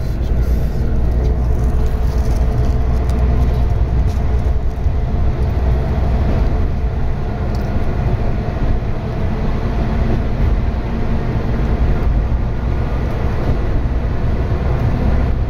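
Diesel railcar running along the track, heard from inside the car: a steady low drone of engine and wheels on rail.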